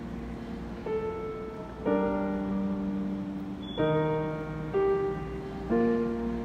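Background music: slow piano chords, five struck in turn and each left to ring before the next.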